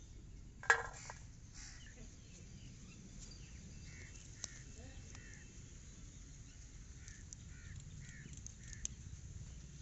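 A single sharp clatter under a second in, from fresh-picked green beans set down on a steel plate. Later, short bird calls repeat in two runs of about four.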